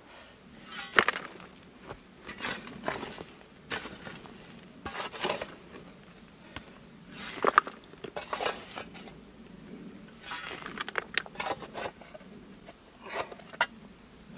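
Steel shovel scraping and scooping loose broken rock, with stones clattering as they are tossed, in irregular strokes a second or more apart.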